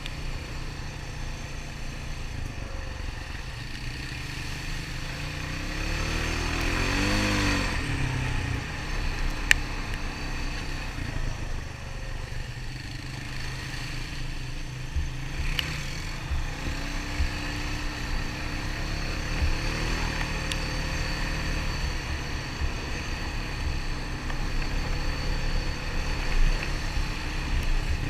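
Honda ATV engine running steadily, revving up and back down between about six and eight seconds in, with a couple of sharp ticks later on.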